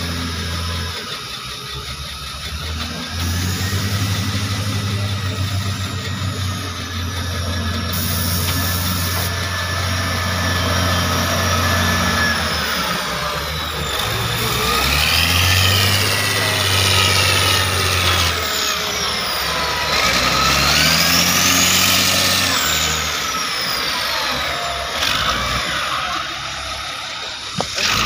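Heavy diesel engines of a Caterpillar 966C wheel loader and an old logging truck working. A deep engine rumble fades and returns several times and climbs in pitch as the engines rev, with a high whine sweeping up and down over it.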